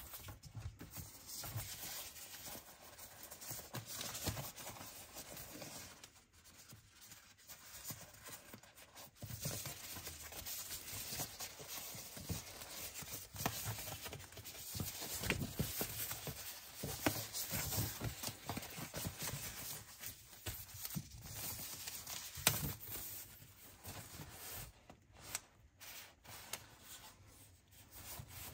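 Packaging being unwrapped and handled: irregular rustling and tearing of wrapping, with many small clicks and taps and one sharper click about three-quarters of the way through.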